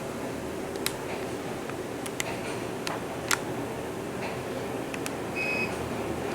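Riding inside an Otis Compass elevator cab: a steady hum of the moving car, with a few sharp clicks in the first half. A short electronic beep comes about five and a half seconds in.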